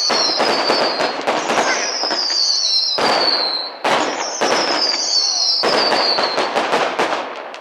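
Fireworks going off: dense rapid crackling and popping, with three high whistles that each slide down in pitch over a second or two. The crackle dies away near the end.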